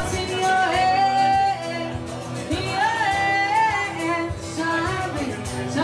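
A woman singing live while strumming an acoustic guitar. Her melody moves in long held notes.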